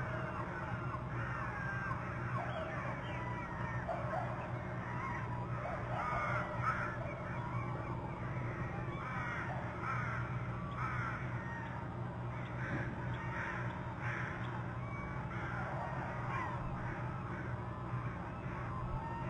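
Wild birds calling repeatedly in short, clustered calls over a steady low hum.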